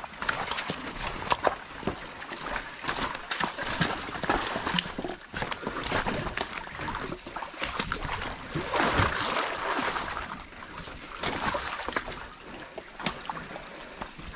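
Mountain bike crossing a rocky, shallow creek: irregular knocks and clatter of tyres, frame and shoes on loose stones, and water sloshing as the bike rolls through, loudest about nine seconds in. A steady high-pitched whine sits underneath.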